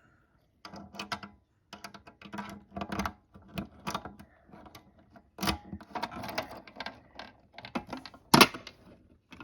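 Manual fire alarm pull station being reset with its key: a run of small metallic clicks and rattles from the lock and handle mechanism, with a sharp snap near the end.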